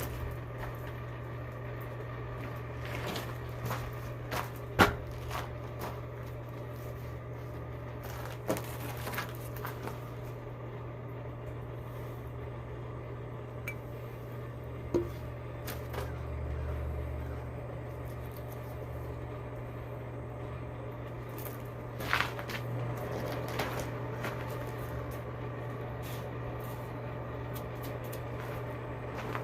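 A steady low hum runs throughout, with a few scattered knocks and clinks, the loudest about five seconds in.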